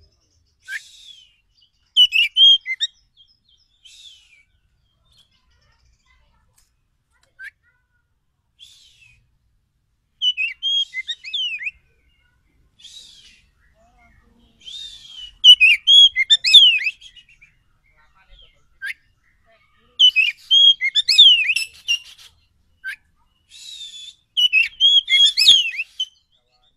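Oriental magpie-robin (kacer) song: bursts of quick, varied whistled notes that glide sharply up and down, each a second or two long, with gaps of a few seconds between. It is the agitated song of a wild bird, played as a lure call.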